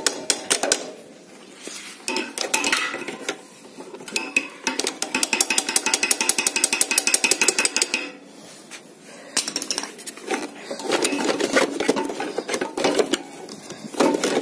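Metal clinking and clicking from pliers and loose metal parts worked on a motorcycle's steering head. A fast, even run of clicks lasts about three seconds near the middle.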